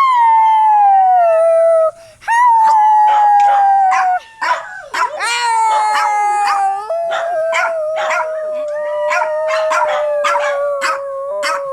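Dogs howling in long notes that slide down in pitch, at times two voices at once, with many short sharp yips and barks breaking in from about two seconds in.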